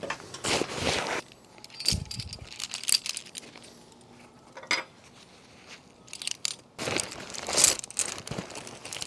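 Climbing gear being packed into a backpack: nylon stuff sacks and pack fabric rustling and crinkling in bursts, with carabiners and climbing hardware clinking.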